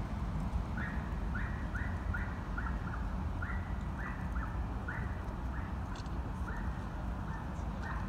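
An animal calling again and again in short, high, similar calls, about two a second, with a longer gap near the end, over a steady low rumble.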